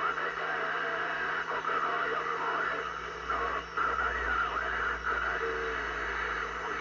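CB radio receiver on 27.005 MHz putting out steady static hiss, with faint, wavering distant voices fading in and out through the noise. These are weak long-distance signals carried by sporadic-E propagation.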